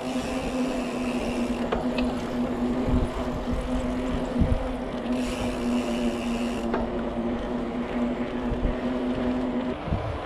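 Mountain bike rolling along a paved path: wind rushing over the action camera's microphone and tyre noise, with a steady hum that stops near the end.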